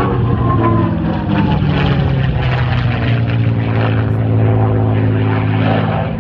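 A North American P-51D Mustang's V-12 Merlin engine running loud as the fighter passes. Its pitch drops in the first second, then settles into a steady low drone.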